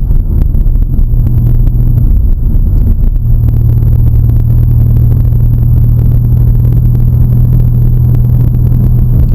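A car engine running steadily with a low hum. The hum dips briefly about two seconds in, then comes back strong.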